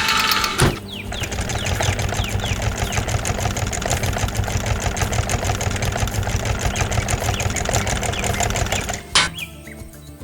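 A rapid, even mechanical clatter from a working machine or power tool, starting with a sharp knock and stopping abruptly about a second before the end.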